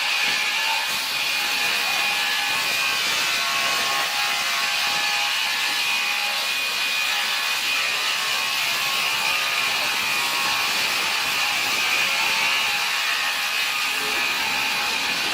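Sawmill machinery cutting wood: a saw running steadily through timber with mechanical rattling, a loud, even noise throughout.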